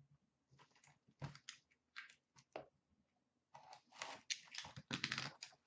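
Cellophane shrink wrap on a sealed hockey card hobby box crinkling and tearing as it is cut and peeled off. It comes in irregular crackly bursts, sparse at first and thicker and louder in the second half.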